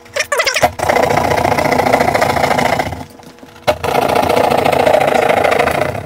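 Hand drywall jab saw rasping through gypsum board while cutting a box opening, in two spells of sawing with a short pause about three seconds in.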